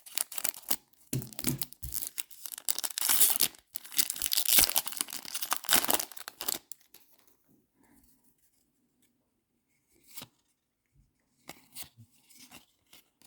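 Foil wrapper of a baseball card pack being torn open and crinkled, a crackly tearing and rustling for about six seconds, then a few light taps and clicks of cards being handled.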